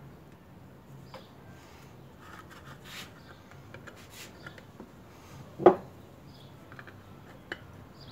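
Light handling sounds: small clicks and rubbing as a plastic PVC-cement bottle is squeezed onto a PVC knife sheath. One short, sharp, much louder sound comes about five and a half seconds in.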